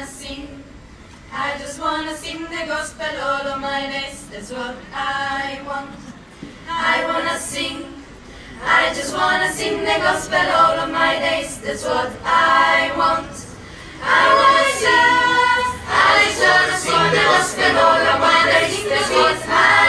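Mixed youth choir of girls and boys singing a cappella, with no instruments. The sung phrases are split by short breaks and grow louder about halfway through.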